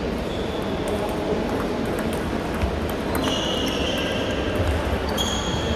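Table tennis hall ambience: a steady din of the hall with light ticks of table tennis balls striking tables and bats from several tables. A couple of short high squeaks sound about three and five seconds in.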